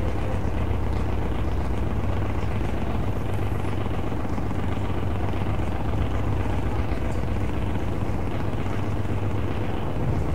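Large single-screw harbour tug's diesel engine running steadily, a low, even rumble.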